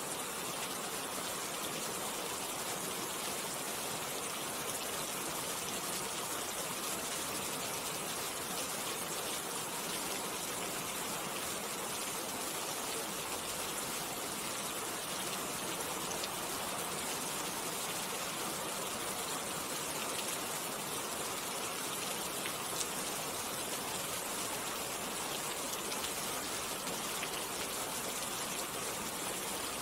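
Steady rain falling: an even, high hiss dotted with the faint ticks of individual drops.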